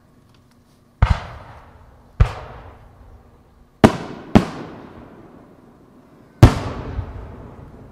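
Aerial firework shells going off: five sharp bangs, two of them close together in the middle, each trailing off in a rolling echo.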